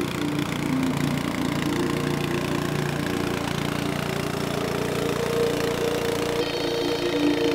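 Small gasoline engine of a Swisher log splitter running steadily at idle.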